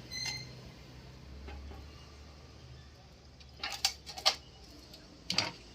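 Power supply unit being handled and set into a metal PC cabinet: a brief squeak near the start, then a few sharp clicks and knocks, the loudest about four seconds in and one more near the end.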